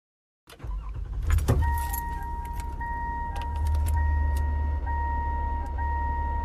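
A car's warning chime sounds steadily with small regular pulses, over a low steady engine rumble, with clicks and a jangle of keys about a second in.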